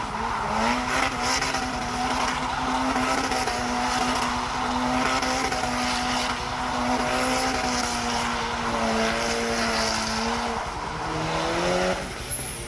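Turbocharged Honda DOHC VTEC four-cylinder engine in an all-wheel-drive EK Civic held at steady high revs while the car spins donuts, tyres squealing and smoking. The engine note dips about ten seconds in, rises again briefly and cuts off near the end.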